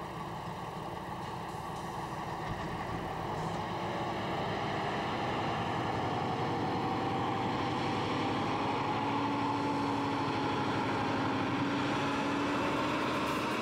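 Tatra truck's diesel engine running as the truck comes over the dune crest and down the sand slope, growing gradually louder as it approaches.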